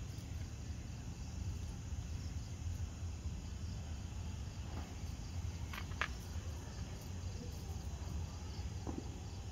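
Crickets chirping over a steady low background rumble, with a brief click about six seconds in.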